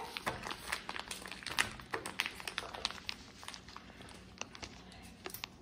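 Plastic packaging crinkling, with many small clicks and crackles as a small toy-slime packet is opened and handled; busiest in the first couple of seconds, then sparser.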